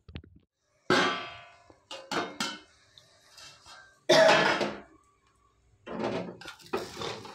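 Metal cookware clanking on an aluminium kadai: several sharp ringing clangs, the loudest about four seconds in, then a metal spatula knocking and scraping through the cooked rice near the end.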